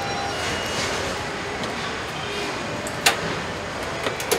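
Assembly-line factory floor ambience: a steady wash of machinery noise with faint high steady tones, broken by one sharp clank about three seconds in and a few lighter clicks near the end.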